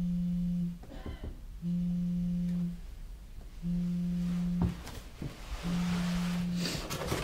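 Mobile phone vibrating on a desk with an incoming call: four low buzzes, each about a second long, about two seconds apart, with a few light knocks between them.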